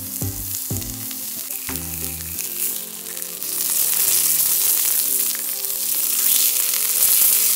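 Meat frying and sizzling in a hot pan, growing louder about three and a half seconds in, over light background music.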